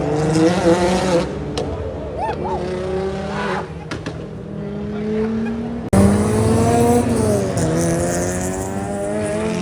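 Cars driving past, their engines revving with the pitch rising and falling as they accelerate and shift. A louder car cuts in abruptly about six seconds in.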